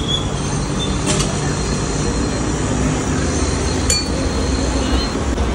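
Steady rumbling background noise of a busy street-food stall. Two sharp metal clinks cut through it, about a second in and again near four seconds in.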